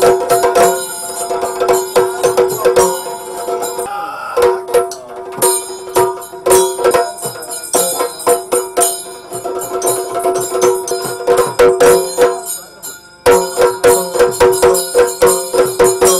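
Yakshagana ensemble playing: chande and maddale drums beating fast over a steady held drone, with bright jingling of cymbals and bells. The music breaks off briefly and comes back in a little before the end.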